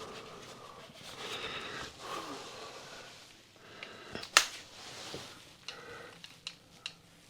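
Clicks and knocks from hand tools working on a fused spur in a wall, with one sharp, loud click about four and a half seconds in and a few lighter clicks near the end.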